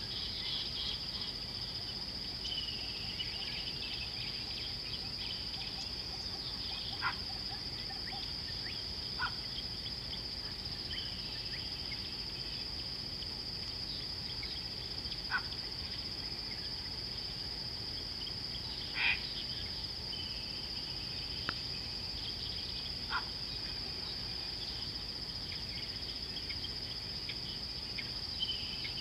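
Steady high-pitched insect chorus droning without a break, with a scratchier chirring layer that comes and goes beneath it. About six brief sharp chirps stand out at scattered moments, the strongest a little after the middle.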